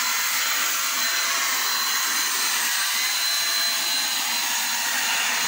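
Hand-held electric paint spray gun running and spraying paint: a steady, unbroken hiss with a thin high whine.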